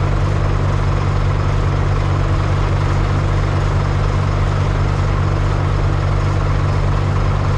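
Diesel engine idling steadily, a low even drone with no change in speed.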